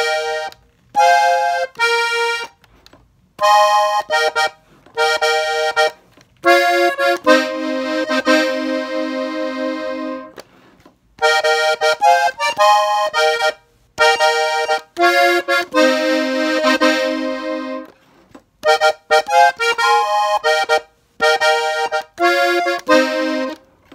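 Hohner Xtreme button accordion in F playing a melody in A-flat on its treble buttons in short phrases with pauses between them, with a couple of longer held notes about seven and fifteen seconds in.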